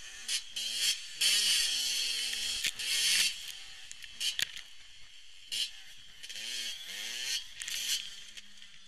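Motocross bike engine revving in repeated throttle bursts, its pitch rising and falling with each one. Near the end the bike goes down in the sand and the engine drops to a low, steady idle.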